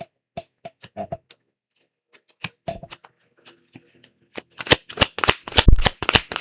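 Tarot cards being shuffled and handled by hand: scattered sharp card clicks and slaps, then a dense, louder run of them from about four and a half seconds in.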